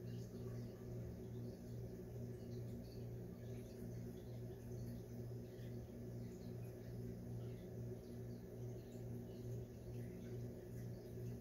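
A steady low hum, with faint, scattered chirps of small birds.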